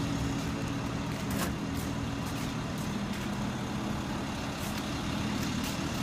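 Steady low drone of an idling motor-vehicle engine, with a few faint clicks over it.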